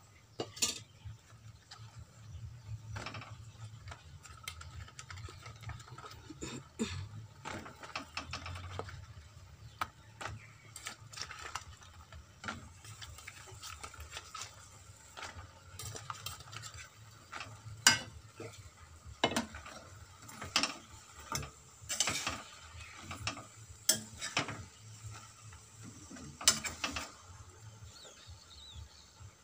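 Metal spoon stirring and scraping in a metal kadai, with irregular clinks against the pan. The sharpest clinks come in the second half, over a faint sizzle of frying paste and flat green beans.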